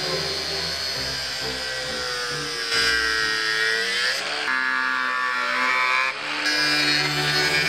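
Milwaukee cordless angle grinder grinding the edge of a metal skeg fin plate, its motor whining steadily. The whine drops in pitch as the disc bites, from about three seconds in, then climbs back quickly as it eases off, with a brief dip in loudness around six seconds.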